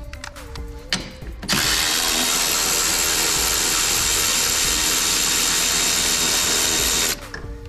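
A power tool runs steadily for about five and a half seconds, starting about a second and a half in and cutting off sharply near the end. It makes a loud, even, hissing whir, consistent with running down or tightening a bolt.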